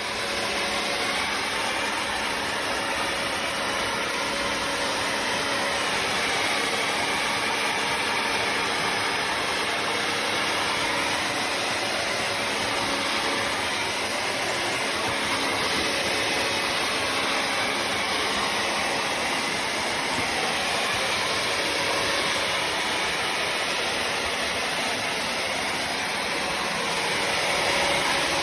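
Bissell CrossWave HydroSteam wet-dry floor cleaner running steadily, its suction motor and brush roll going as it washes and vacuums the floor.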